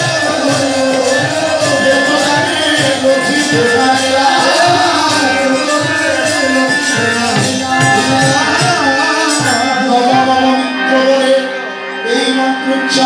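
Devotional kirtan music: a khol drum beating a steady rhythm with brass hand cymbals (kartal) ringing over it, and voices singing. The cymbals thin out about ten seconds in, and a sharp clash comes near the end.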